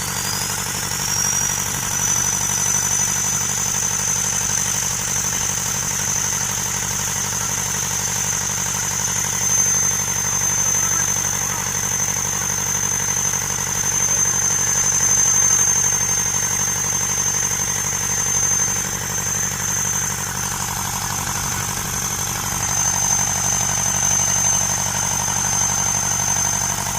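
Freshly repaired Perkins diesel engine of a forklift idling steadily just after starting. A high whine rises in pitch over the first couple of seconds, then holds steady.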